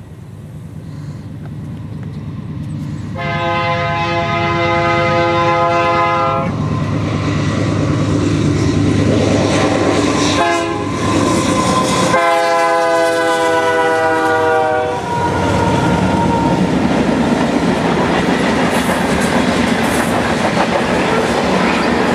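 Canadian Pacific diesel freight locomotives approaching, their engines rumbling and growing louder. The air horn sounds a long blast about three seconds in, a short one around ten seconds and another long one around twelve seconds. Then comes the steady rush and clatter of the freight cars' wheels on the rails as the train rolls past.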